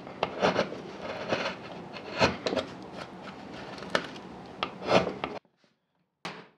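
Small hand carving tool cutting fine detail lines into a carved wooden rosette: a run of short, irregular scraping cuts with sharp ticks, which cuts off abruptly about five seconds in.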